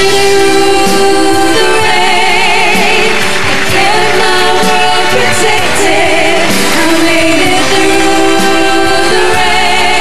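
Female voices singing a pop ballad over band accompaniment, held notes wavering with vibrato.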